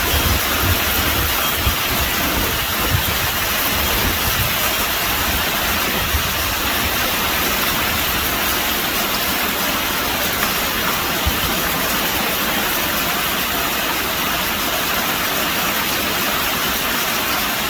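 Very heavy rain pouring down in a loud, steady hiss. An uneven low rumble comes and goes in the first few seconds.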